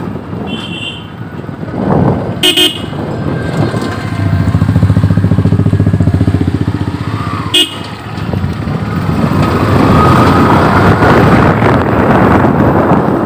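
Motorcycle engine running under way, loudest for a few seconds in the middle. Short horn toots sound about two and a half seconds in and again at about seven and a half seconds.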